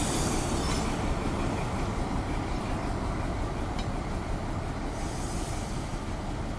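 Krupp-built BB304-class diesel-hydraulic locomotive running as it moves past slowly on a shunting move, coupled to carriages. The engine and the rumble of wheels on the rails fade gradually as it draws away, with some high hiss from the wheels.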